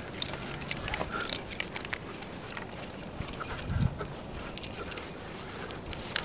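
Climbing hardware clinking: carabiners and cams on a climber's harness rattle and tick in short clicks as he moves up rock, with scuffs and a dull thump a little before four seconds in, over a steady hiss.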